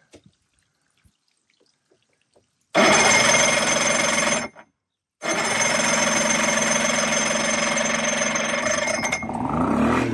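Outboard motor's electric starter cranking a long-stored engine in two runs, a short one and then a longer one about four seconds long. Near the end the engine fires briefly and the sound changes pitch as it winds down. It fires with oil still soaked in the cylinders.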